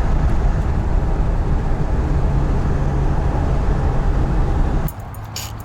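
Ford E350 van's 5.4 L V8 running with a steady low rumble, which stops suddenly near the end, followed by a few sharp clicks.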